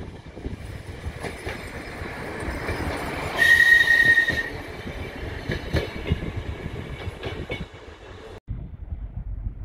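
RA1 diesel railbus passing close at low speed, its wheels knocking over the rail joints. About three and a half seconds in it gives a short, high, steady horn signal lasting about a second. Near the end the sound cuts off abruptly to a faint low rumble.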